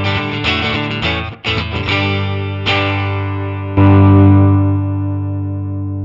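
Electric guitar, a Fender Stratocaster played through a Nux MG300 amp modeller with a driven tone: quick rhythmic chord strums, then one loud chord struck a little past halfway and left to ring out and fade.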